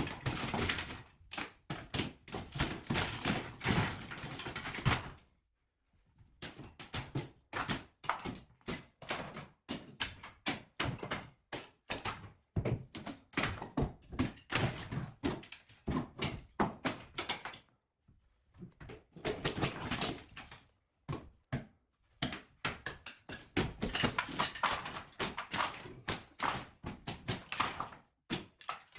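Plaster and ceiling being torn down with hand tools: a dense, irregular run of knocks, thuds and clattering debris, broken by a few short pauses.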